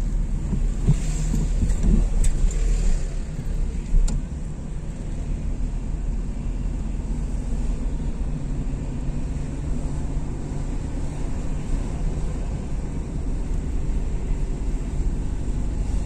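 Car driving at low speed, heard from inside the cabin: a steady low rumble of engine and tyres on the road, with a couple of brief knocks about two and four seconds in.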